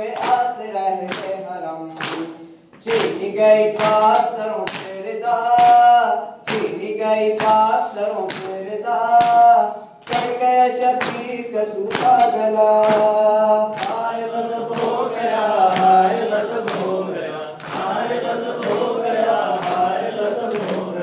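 Men's voices chanting a noha, an Urdu mourning lament, over a steady beat of hands striking chests (matam) about three times every two seconds. The slaps become less distinct in the last few seconds.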